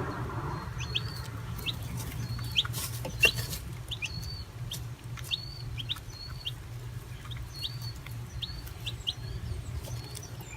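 Young chicks peeping: many short high cheeps, about one or two a second, with a few light taps among them.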